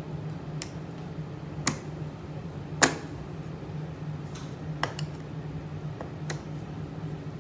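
Dreo ultrasonic cool-mist humidifier running, with a steady low hum and about six sharp clicks at irregular spacing, the loudest about three seconds in.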